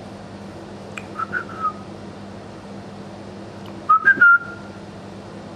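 A person whistling short notes to get a dog's attention: a soft group of chirps about a second in, then a louder group about four seconds in that ends on a short held note. A steady low hum runs underneath.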